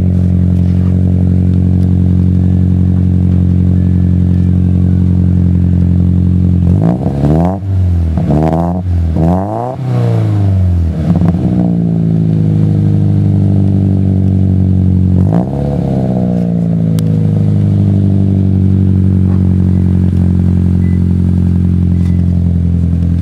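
2017 Subaru Impreza's 2.0-litre flat-four idling steadily through a Nameless aftermarket muffler, heard at the exhaust tip. A few quick throttle blips come about seven seconds in and one more about fifteen seconds in, the exhaust note rising and falling in pitch with each before settling back to idle.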